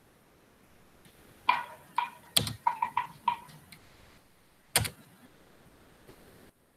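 Computer keyboard keystrokes: a quick run of about eight key presses, then a single sharper keystroke about a second later.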